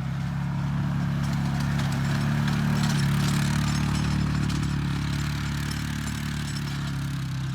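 Engine of a machine spraying magnesium oxide dust onto pasture, running steadily with a hiss over it, swelling slightly around the middle.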